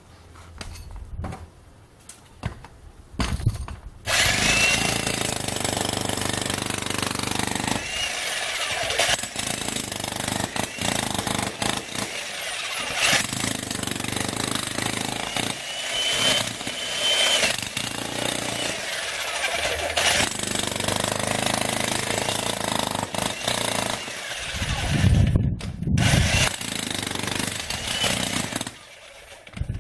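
A few light metal clinks, then about four seconds in a 2200-watt electric demolition jackhammer starts and hammers continuously and loudly, with a brief stop near the end.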